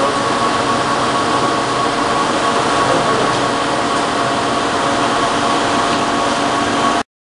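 Steady machinery noise from pumps and equipment in a pipe-filled plant room: a constant hum with several held tones over a broad rush. It cuts off suddenly near the end.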